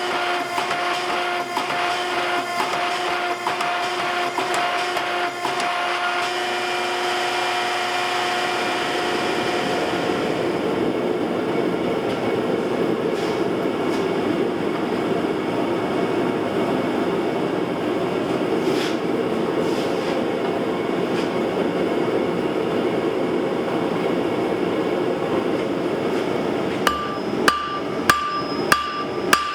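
A steady mechanical hum with faint ticking gives way after about nine seconds to a steady rushing noise. Near the end a blacksmith's hammer starts striking hot iron on an anvil in an even rhythm, each blow ringing.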